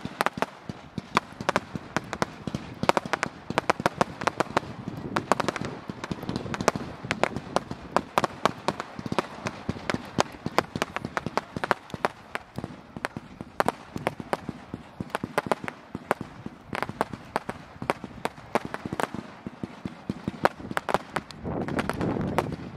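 Wooden-pallet bonfire crackling and popping, with many sharp snaps every second and no let-up.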